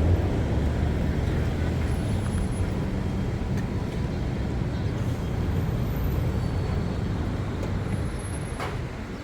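Steady city street traffic: the low rumble of passing engines and vehicles, heaviest in the first few seconds, with a few sharp clicks near the end.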